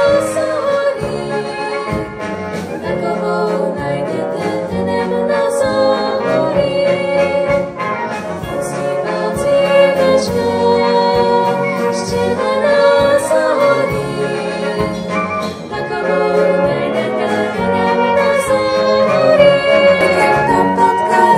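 Brass band playing: tuba, trumpets, trombone and clarinets over a drum kit in a steady rhythm, with women singing along.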